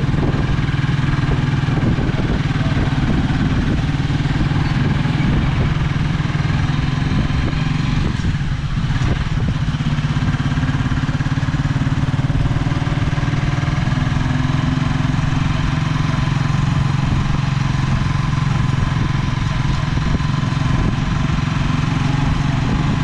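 Motorcycle engine running steadily while the tricycle rides along, heard from inside the sidecar, with road and wind noise around it.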